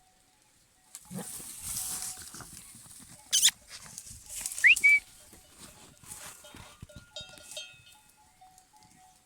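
Goats in the rut moving about and calling, with a brief, sharp rising squeak near the middle as the loudest sound.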